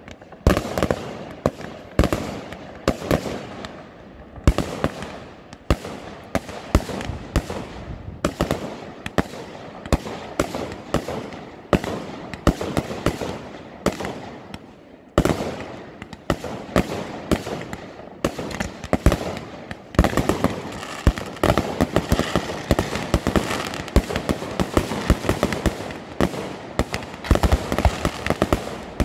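Fireworks display: aerial shells bursting in quick succession, a steady stream of sharp bangs and pops that grows denser and more continuous about two-thirds of the way through.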